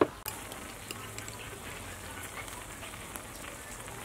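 Soup simmering in a steel hot pot over a tabletop burner: a steady bubbling hiss with a few light ticks, after a sharp click at the very start.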